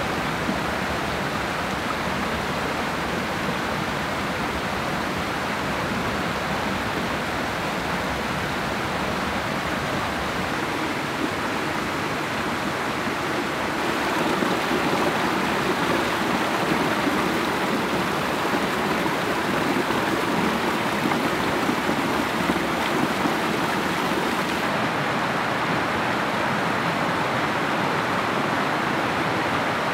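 Rocky mountain stream rushing and tumbling over boulders in a steady rush of water. It grows a little louder about halfway through and turns duller near the end.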